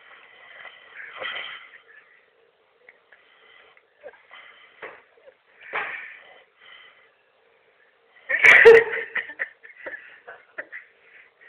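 A sleeping man snoring: noisy snores a few seconds apart, the third a sudden loud burst about eight and a half seconds in, the loudest sound here.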